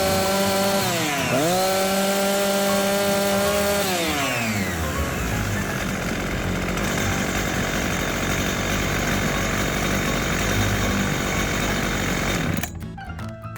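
Husqvarna 357XP two-stroke chainsaw running at high revs on its test run after repair, dipping briefly and recovering about a second in. The revs fall away about four seconds in and it runs on lower and rougher. A short music jingle starts near the end.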